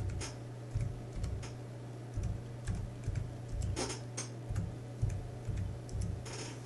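Computer keyboard typing: a run of irregular keystrokes as a short phrase is typed, over a steady low hum.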